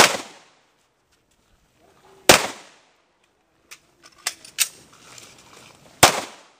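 Three widely spaced handgun shots, each with a short echoing tail: one right at the start, one a little over two seconds in, and one about six seconds in. A few fainter clicks and knocks fall between the second and third shots.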